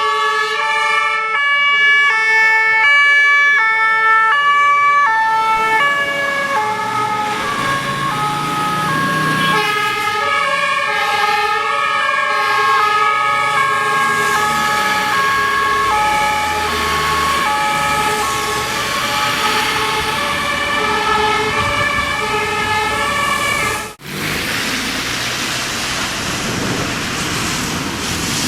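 German fire engines' two-tone sirens (Martinshorn) alternating between two pitches, with a second siren joining out of step after about six seconds. About 24 s in the sound cuts and is taken over mostly by a rushing vehicle and road noise with the sirens fainter.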